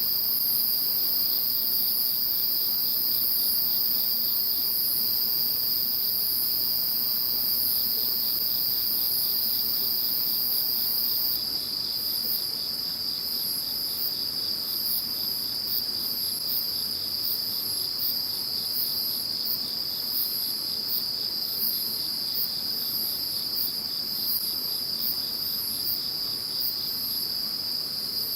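A chorus of insects calling. One keeps up a steady high trill, while a second, higher-pitched insect changes from a continuous buzz to a regular run of short chirps about a third of the way in.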